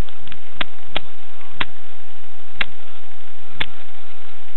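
Sharp ticks about once a second, evenly spaced, with a few extra clicks between them, over a faint steady electronic whine. This is the self-noise picked up by a wrist-watch camera's microphone.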